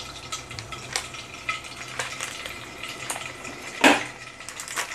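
Butter melting in hot oil in a pot, sizzling and crackling with many small pops. A sharp knock about four seconds in.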